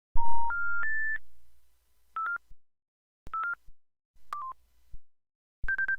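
Electronic system beeps from a SKY IM-U150L mobile phone: a three-note rising beep, then short paired beeps about once a second, and a last beep near the end.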